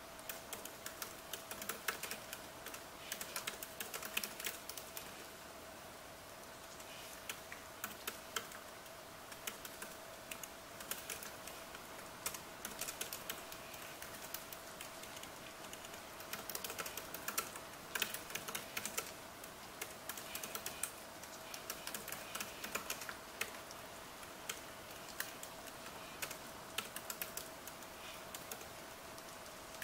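Typing on a MacBook laptop keyboard: bursts of quick, light key clicks with short pauses between them. Underneath is a steady hiss and a faint steady hum.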